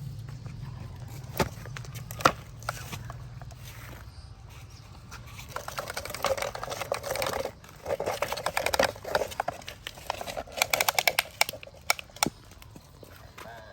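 Toy construction vehicles at work: a low motor hum at first and a few sharp knocks, then a long stretch of quick clattering and scraping, strongest near the middle and end.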